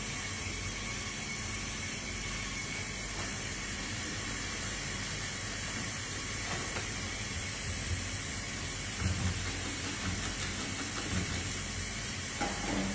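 Steady hiss, with a few soft low thumps in the later part.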